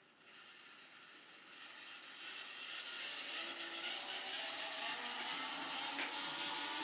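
Roomba 530 robot vacuum running: its motors whir, growing louder over the first few seconds and then running steadily, with a light tick near the end.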